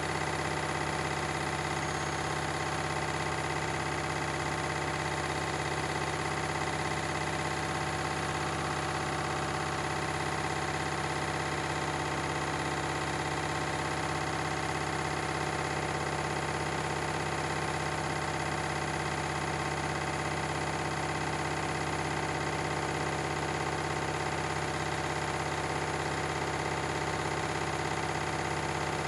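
Beko and Candy washing machines spinning at steady speed, an even hum with a constant high whine that holds unchanged throughout.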